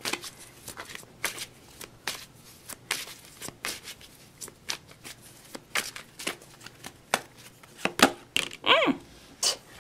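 Tarot cards being shuffled and handled: scattered soft flicks and rustles of card stock.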